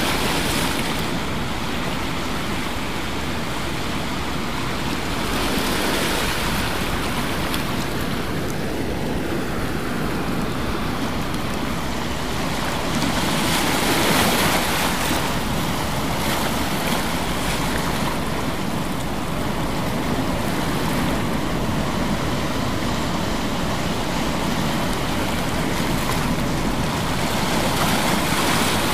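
Ocean surf: a steady rush of breaking waves that swells every several seconds.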